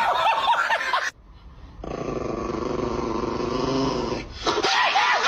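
Dog vocalising: high, wavering whines for about the first second, a long low growl in the middle, then high whines again near the end.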